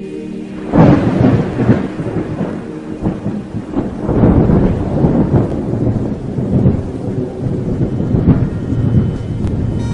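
Thunder rumbling over steady rain, starting suddenly about a second in and swelling several times.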